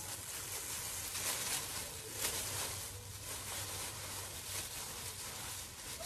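Thin plastic bag crinkling and rustling as it is pulled over the hair and tied around the head.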